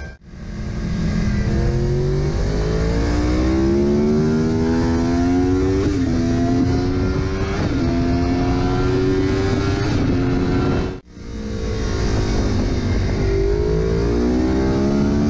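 Yamaha YZF-R1 crossplane inline-four accelerating hard, heard onboard with wind rush. The engine's uneven-firing note climbs steadily, with quick upshifts about six and eight seconds in. It cuts out abruptly near eleven seconds, then the revs build again.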